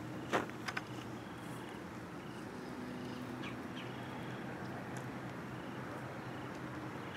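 Steady open-air background at a pond, with short faint bird chirps scattered through it and a few sharp clicks in the first second.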